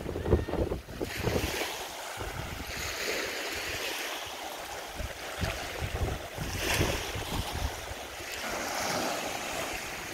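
Small waves washing in, with wind buffeting the microphone for about the first second.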